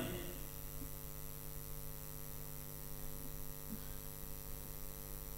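Steady electrical mains hum with a buzz of many overtones, from the sound system while the microphone is open between spoken sentences.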